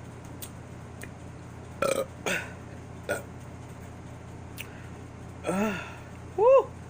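A woman burping after a swig of a strong drink: short bursts about two and three seconds in, then a longer burp about five and a half seconds in.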